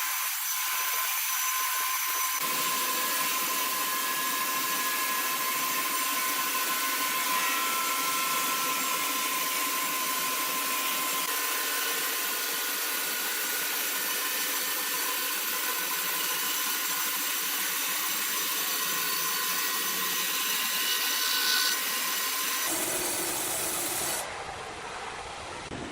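Sawmill saw running and cutting wood, a steady hissing machine noise with a constant whine. The sound changes abruptly near the end.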